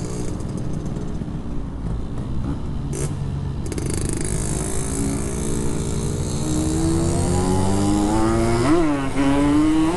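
Yamaha RX-King 135cc two-stroke single-cylinder motorcycle engine running through a gutted Packing Power PK1 exhaust, its pitch climbing steadily as the bike accelerates, with a quick rise and fall in pitch near the end.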